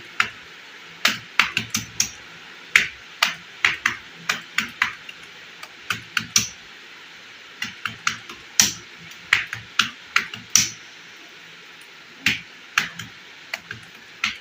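Keys of a Logitech MK240 compact membrane keyboard being pressed one at a time and in short bursts, each a sharp click, at an irregular pace with a pause of about a second and a half in the second half.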